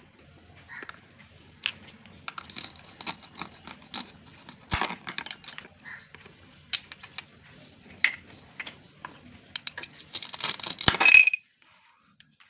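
Hello Kitty plastic toy fruit pieces clicking, tapping and clattering as they are handled, with a denser, louder flurry of clatter near the end that cuts off suddenly.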